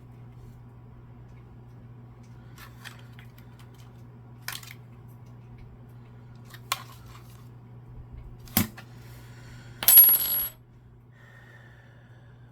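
Small hard parts of a game controller and its tools being handled: scattered sharp clicks, then a short, loud clatter with a bright metallic ring about ten seconds in, over a steady low hum.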